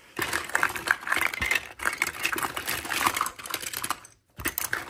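Small plastic toy figures clattering and clicking against each other as someone rummages through a pile of them, with a brief pause about four seconds in before the rattling resumes.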